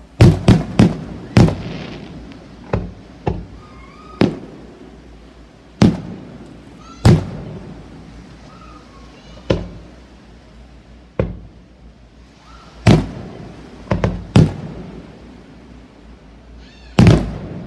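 Aerial firework shells bursting: a quick cluster of sharp bangs at the start, then single bangs every one to two seconds, with a pair about two-thirds of the way through and a last strong cluster near the end. Each bang trails off in a short rumbling echo.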